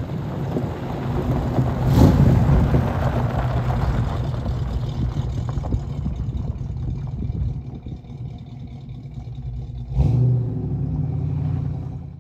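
1966 Ford Mustang's 302 V8 engine running as the car drives. It is loudest about two seconds in and fades away from about six seconds. It comes back sharply louder near the end, then cuts off abruptly.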